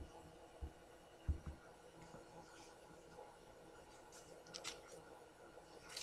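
Computer mouse clicks against quiet room tone: three soft, dull knocks evenly spaced in the first second and a half, then a couple of fainter, sharper clicks near the end.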